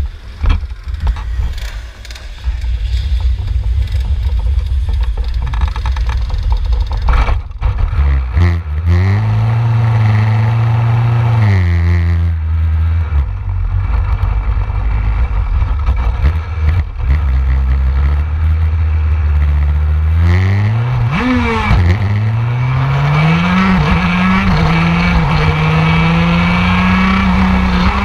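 Onboard two-stroke shifter kart engine pulling out at low speed: it runs low and rough, revs up and eases off. Then, about three-quarters of the way through, it climbs steeply to high revs under full throttle, with small dips in pitch as it pulls.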